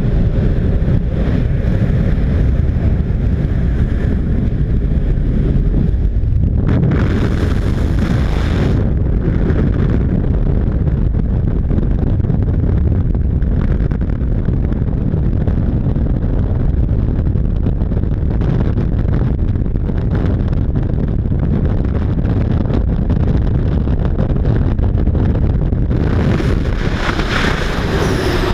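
Steady loud rumble of a jump plane's engine and wind rushing past its open door, buffeting the microphone. Near the end it turns into the hissier rush of freefall wind as the skydivers leave the plane.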